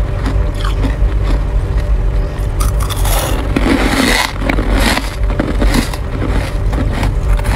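Freezer frost being scraped, a run of short, irregular crunching scrapes that thicken into a longer, denser scraping stretch about three seconds in, over a steady low hum.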